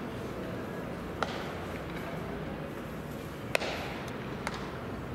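Open ballpark ambience with a steady background murmur, broken by a few sharp cracks of ball and bat or ball and glove during baseball practice. The loudest crack comes about three and a half seconds in, and lighter ones come about a second in and near the end.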